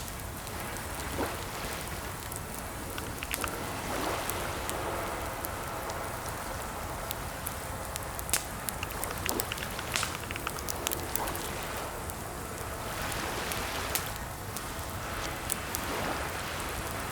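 Keyboard typing: irregular, scattered key clicks over a steady rushing hiss.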